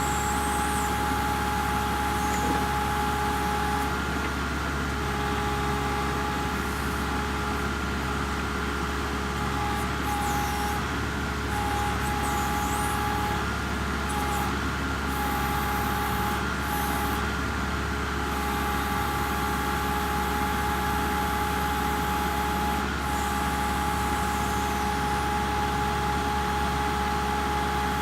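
Kubota MX5800 diesel tractor engine running steadily under work, a constant low rumble with a steady whine over it.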